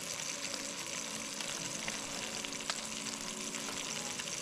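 Food frying in a cast-iron skillet: a steady sizzle with scattered small crackles.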